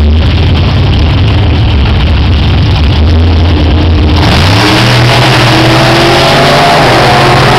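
Two nostalgia drag cars, one a gasser, running loud and steady at the starting line. About four seconds in they launch, and the engine note sweeps up in pitch as they accelerate away down the strip.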